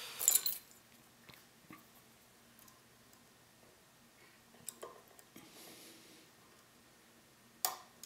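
Metal lock picks working inside a small dimple cam lock during single-pin picking: faint scraping and small metal clicks of the pick and tension tool against the pins, loudest just after the start, with one sharp click near the end.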